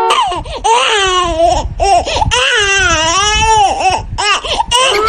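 High-pitched wailing and sobbing: long wavering cries broken by short catches of breath, a staged cry for a ghost prank.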